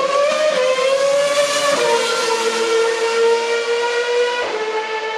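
Racing car engine at high revs. Its pitch climbs, drops sharply about two seconds in, drops again near the end, then holds steady.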